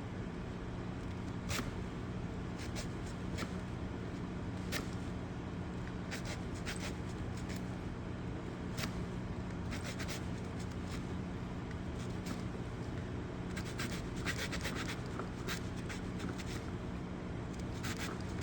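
Small saw blade of a Victorinox pocket knife rasping through a stick of dry crate wood in short, irregular strokes, with a denser run of strokes about two-thirds of the way through.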